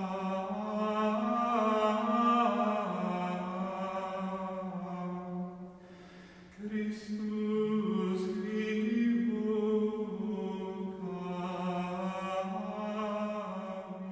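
Background music of slow chant-like singing, voices holding long notes that change pitch every second or two. It dips briefly about six seconds in and starts fading near the end.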